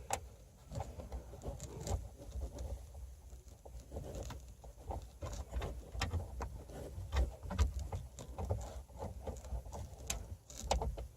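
Faint handling noise: scattered light clicks and rustles as a screw and the speaker are worked into the rear parcel-shelf mount by hand, over a low rumble.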